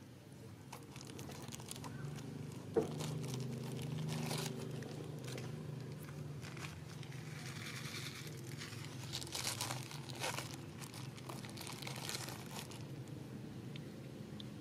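Irregular small clicks and rustling, with one sharp click about three seconds in, over a low steady hum.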